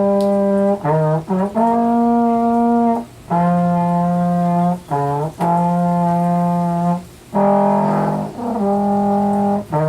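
Low brass instrument played in a practice phrase of long held notes with short breaks between them, starting on a G. The pitch steps up and down between notes, and a few notes near the end sound rougher.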